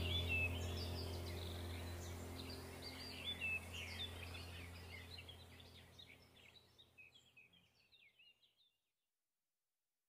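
Small birds chirping over a low, steady ambient music drone, both fading out over the first six or seven seconds into silence.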